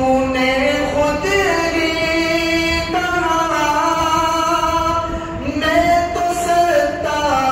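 A man chanting solo and unaccompanied in the melodic style of a hamd or naat recital, through a microphone. He holds long notes that slide from pitch to pitch, with a short breath about five seconds in.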